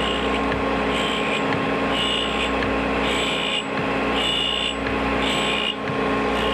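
Drill grinder's wheel running steadily with a hum as the step of a two-flute step drill is ground against it. A higher-pitched grinding rasp comes back about once a second, once for each pass of the cam-driven drill across the wheel.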